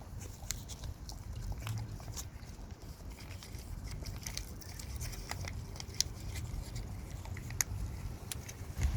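A dog eating, with irregular sharp crunching clicks of chewing over a steady low rumble.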